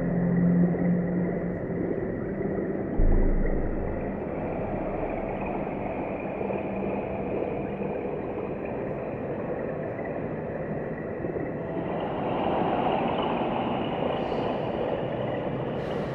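Dark ambient film score: a dense, rumbling noise texture with a low hum at first, a deep hit about three seconds in, and a swell near the end.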